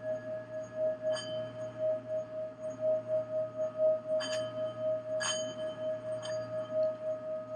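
Singing bowl sounding a steady, wavering ringing tone that swells and fades a few times a second. Four lighter strikes ring out higher over it, about one, four, five and six seconds in.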